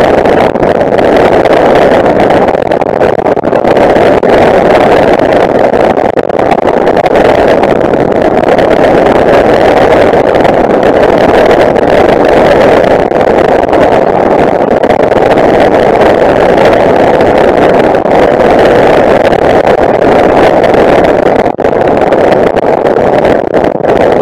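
Tanarg flexwing microlight on approach and landing, heard from on board. Its engine and the rushing airflow make a loud, steady, even noise that hardly changes.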